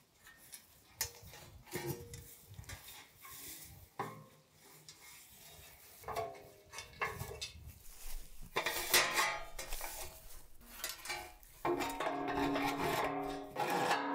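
Sheet-metal grill parts clattering, knocking and scraping as they are handled and fitted together, over plucked-guitar background music that grows louder near the end.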